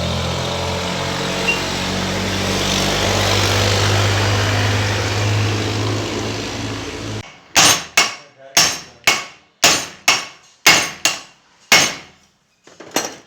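A vehicle engine running steadily with a low hum, cut off suddenly about seven seconds in, then about eleven hammer blows in quick succession, roughly two a second, and two lighter ones near the end, typical of driving a new wheel bearing into place.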